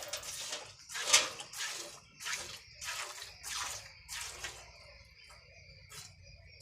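Hand-milking a cow: jets of milk squirting into a pail in a steady rhythm, about two squirts a second, each a short hiss. The squirts grow faint and stop about five seconds in.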